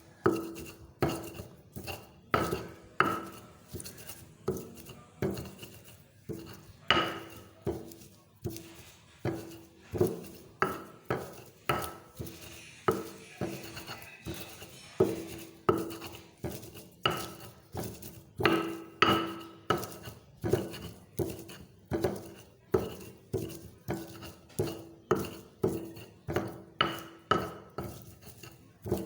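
Pestle pounding and grinding sugi-sugi leaves in a cobek (mortar), knocking steadily at about one and a half strikes a second, each knock ringing briefly.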